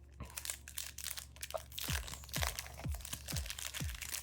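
Foil wrapper of a trading-card pack crinkling and crackling as it is handled and opened, over background music with a steady low beat that comes in about two seconds in.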